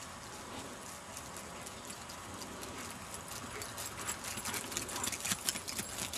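A German shorthaired pointer's paws crunching and rustling through dry stubble, the footfalls growing denser and louder about four seconds in as the dog runs close by.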